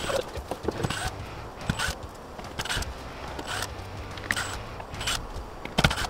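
Cordless drill backing Phillips-head screws out of an overhead plastic air-conditioner panel: short bursts, clicks and rattles about once a second, with a sharp knock near the end.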